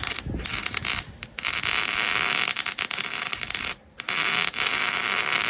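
Electric arc welder crackling and hissing while welding a plate on, with the arc stopping briefly twice.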